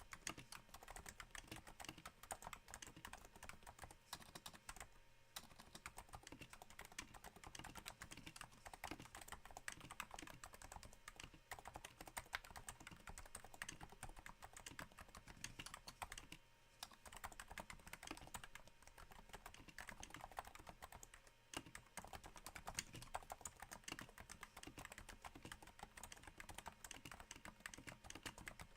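Continuous typing on a Cooler Master Novatouch keyboard with Topre switches damped by Hypersphere silencing rings, on a thin desk mat: a quiet, dense patter of keystrokes that sounds a little like rain, broken by a few brief pauses.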